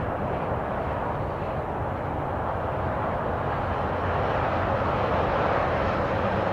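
Business jet coming in to land, its engines a steady rushing drone that grows a little louder in the second half.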